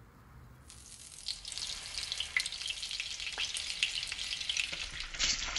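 Butter and olive oil sizzling in a hot frying pan: a steady frying hiss with scattered crackles and pops, starting about a second in after a faint quiet moment.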